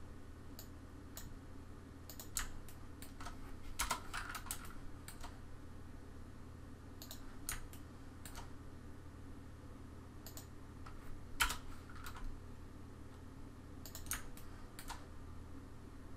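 Scattered clicks of a computer mouse and keyboard, single or in small clusters a second or more apart, over a steady low hum.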